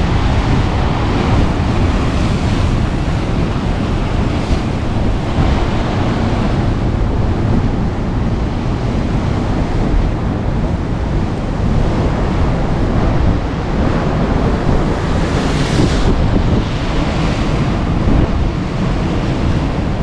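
Storm-driven sea surf crashing and washing over rocks, with strong wind buffeting the microphone in a continuous low rumble. Hissing surges of breaking waves rise and fall over it, one of the loudest near the end.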